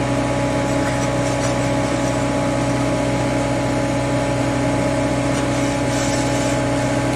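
Engine of a Geoprobe direct-push drilling rig running steadily at idle, an even drone with no hammering or strokes.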